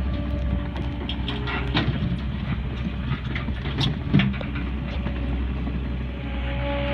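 Engine of a compact tracked skid-steer loader running steadily as it creeps down a dirt trail carrying logs on a fork attachment, with scattered clicks and knocks over the hum.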